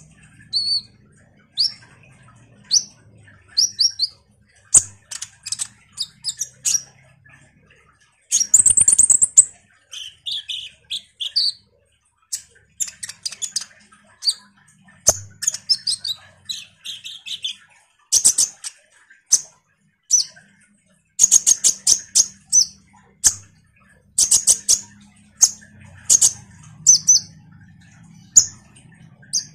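Kolibri ninja (konin) sunbird singing a fast, chattering song: bursts of high, thin chirps, quick trills and short sweeping notes, broken by brief pauses.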